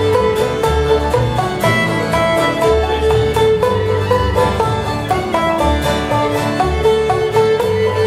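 Old-time string band playing a fiddle tune: fiddle carrying the melody over banjo, acoustic guitar and upright bass keeping a steady beat.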